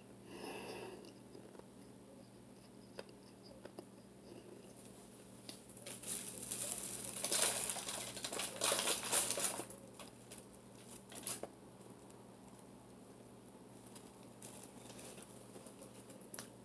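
Close rustling and crinkling from hands handling things at the microphone for about four seconds in the middle, then a few light clicks.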